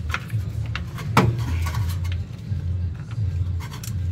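Hand tools clinking and scraping on metal under the truck as a wrench is worked onto the transmission harness bolt. There are a few sharp clicks, the loudest about a second in with a short ring after it, over a low wavering hum.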